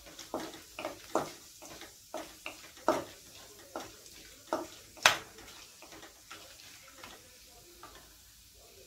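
Wooden spatula scraping and knocking against a metal kadai while stirring whole spices frying in oil, over a faint sizzle. The strokes are irregular, about one or two a second, the loudest a sharp knock about five seconds in, and they thin out over the last few seconds.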